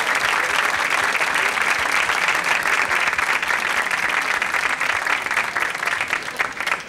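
A studio audience applauding steadily, a dense patter of many hands clapping that fades out just before the end.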